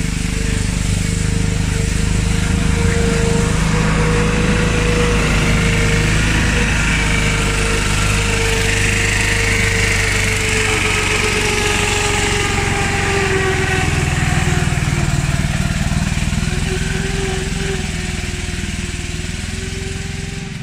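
A Lombardini single-cylinder diesel engine on a two-wheel tractor runs steadily under load, pulling a trailer up a muddy slope. Its pitch wavers slightly, and it fades over the last few seconds as it pulls away.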